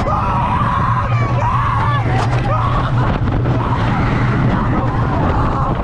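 Amusement park ride running: a steady low rumble and rushing noise, with high wavering screams over it.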